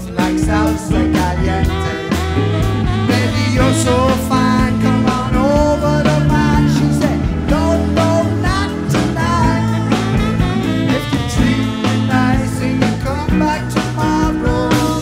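A live funk-ska band playing a blues number: electric guitar, bass and drum kit, with wavering melodic lines over the top.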